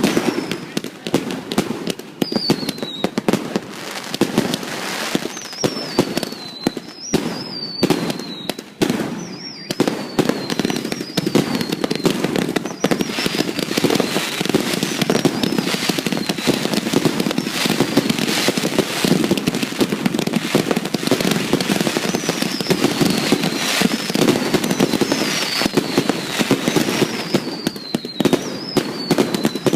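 Fireworks going off without a break: a dense stream of bangs and crackles, with short whistles falling in pitch again and again.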